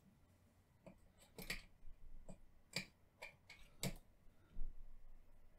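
Light clicks and taps of small fly-tying tools and fingers working at the vise, several scattered over a few seconds, the sharpest three about a second apart.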